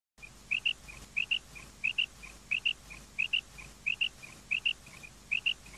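Female common quail calling: a soft note followed by a quick loud double note, repeated steadily about every 0.7 seconds. The calls begin just after the start.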